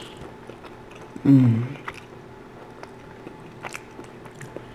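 Close-up chewing and biting of crunchy baked garlic-knot pizza bread: small crackly crunches and mouth clicks. A short voiced sound comes about a second in.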